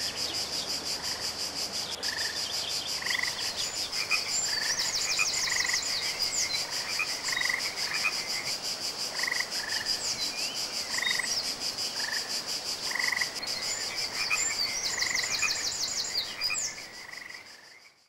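Pond frogs calling in short notes about once a second over a continuous high, finely pulsed trill, with a few quick chirps around five seconds in and again near the end; the whole chorus fades out at the end.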